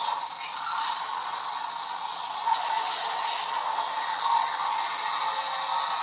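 Electronic sound effect from a transformation-belt toy's small speaker: a steady hissing, rushing noise.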